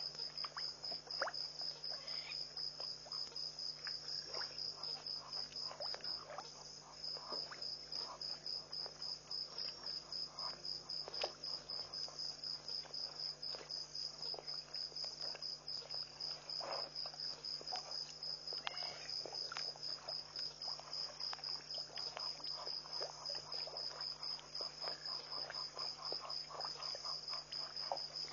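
Night insects, cricket-like, chirping in a steady high-pitched pulsing trill of about four pulses a second, with faint scattered clicks beneath it.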